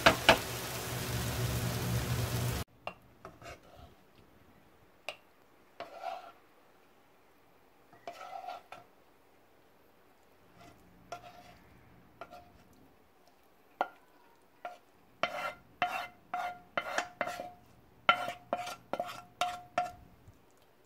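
Egg and tomato stir-fry sizzling in a nonstick frying pan as a wooden spatula stirs it, which stops abruptly after about two and a half seconds. Then come scattered scrapes and knocks of the wooden spatula against the pan and a ceramic plate as the stir-fry is scooped out. Near the end these become a quick run of about a dozen knocks with a short ringing tone.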